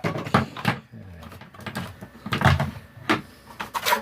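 Packaging being handled: a series of separate knocks, clicks and rustles as a hair straightener and its box are handled on a bench.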